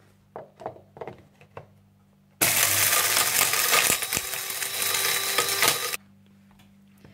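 Small electric blade spice grinder running for about three and a half seconds, grinding whole spices (cinnamon, cumin, black peppercorns, cardamom seeds) to powder, then cutting off suddenly. A few light clicks come before it starts.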